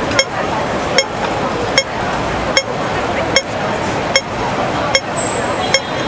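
Hong Kong pedestrian crossing signal ticking at its slow rate, one sharp tick about every 0.8 seconds, the pace that tells pedestrians to wait while the red man shows. Steady street noise with traffic and crowd chatter underneath.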